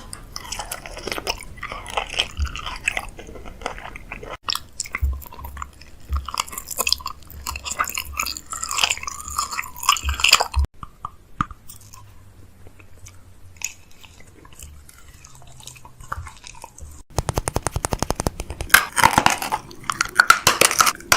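Close-up chewing and crunching of food, in several short stretches with abrupt breaks between them. About 17 seconds in comes a quick run of rapid, evenly spaced clicks, followed by more crunching.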